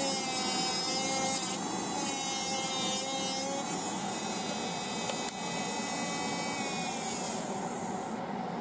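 Electric nail file with a carbide bit running at speed, its whine mixed with the grinding hiss of the bit cutting through a gel nail to shorten it. The grinding eases and stops near the end.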